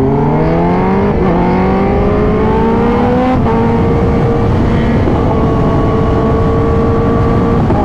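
Kawasaki sportbike's engine accelerating hard, heard from the rider's seat: revs rise and drop at upshifts about a second in and about three and a half seconds in. It then holds steady revs at cruising speed, over steady wind rush.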